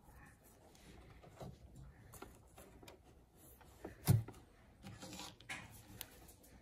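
Fabric and trim being handled and positioned at a sewing machine: faint rustling and shuffling, with one sharp knock about four seconds in. The machine itself is not running.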